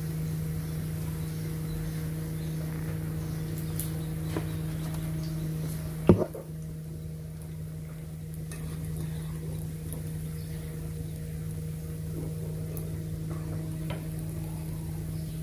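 Vegetable Manchurian balls deep-frying in hot oil, a steady sizzle over a constant low hum. A single sharp knock about six seconds in is the loudest sound, with a few faint ticks elsewhere.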